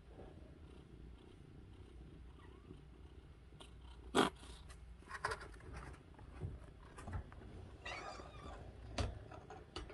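Kitten purring, a steady low rumble, while its back is stroked. From about four seconds in come sharp rustles and knocks as it stirs and gets up on the mat, the loudest a short sharp noise about four seconds in.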